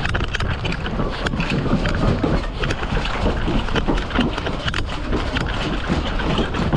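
Footsteps and gear rattle of an airsoft player on the move: a run of irregular clicks and knocks over a steady rumble of wind on the microphone.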